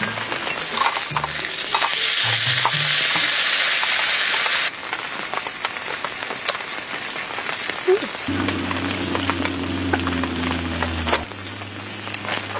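A vegetable-and-seafood pancake sizzling in oil in a griddle pan: a loud, even hiss that cuts off abruptly about five seconds in. Soft background music with held low notes follows.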